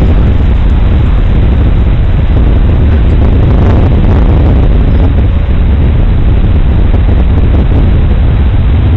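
Radio-controlled Extra 300S aerobatic model plane in flight: a loud, steady rush of engine, propeller and wind noise with a heavy low rumble.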